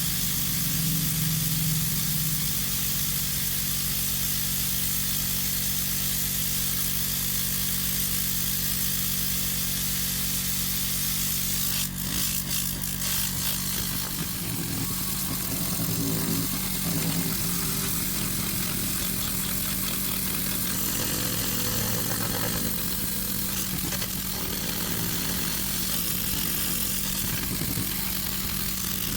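A motor running steadily, with a cluster of clicks about twelve seconds in.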